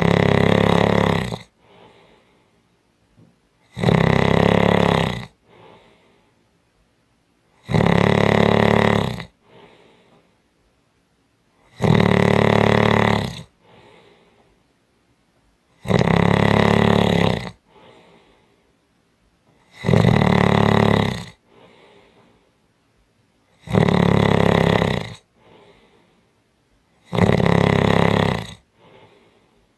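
A person snoring strongly. Each loud snore lasts about a second and a half and comes about every four seconds, eight in all, with a faint breath between snores.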